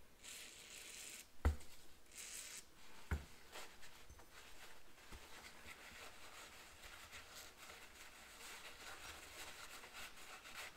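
Two short hisses from an aerosol spray can sprayed through its straw onto a paper towel, with two sharp knocks on the workbench between them. Then faint rustling as the solvent-soaked paper towel is rubbed over the aluminium cylinder head.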